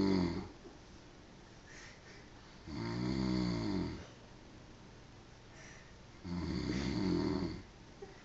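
A man snoring in his sleep: two full snores, each lasting over a second and about three and a half seconds apart, with the tail of another at the very start and quiet breathing between.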